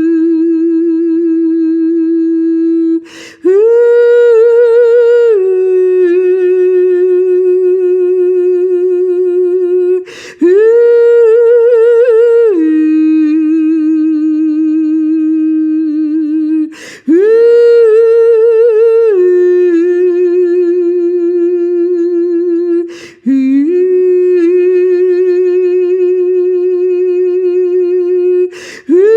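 A woman's wordless vocal toning for sound healing: long held notes with a wavering pitch, in phrases of about six seconds broken by short breaths. Each phrase opens on a higher note and steps down to a lower one that is held longer.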